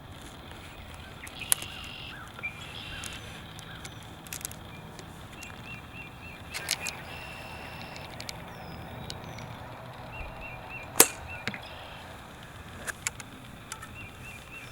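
Songbirds calling in the woods, with short repeated chirping phrases, cut by a handful of sharp cracks, the loudest about eleven seconds in.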